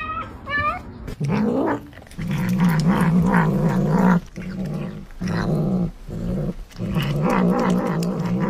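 Cat growling over its food as it bites into a baked purple sweet potato: several long, low, wavering growls with short breaks between them.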